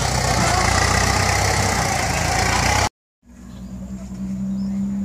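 Kubota M9000 tractor's diesel engine working hard as the front blade pushes soil. About three seconds in the sound cuts out for a moment, then a tractor engine idles more quietly with a steady low hum.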